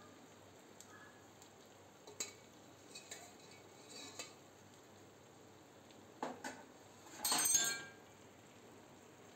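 A metal ladle stirring milk in a stainless steel pan, with a few light clinks against the pan, then a louder scraping clatter about seven seconds in, over a faint steady hiss.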